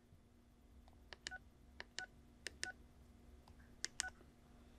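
Quiet key clicks and short keypad beeps from a Belfone BF-TD511 DMR handheld radio as its buttons are pressed to scroll through the menu: about seven presses, several in quick pairs.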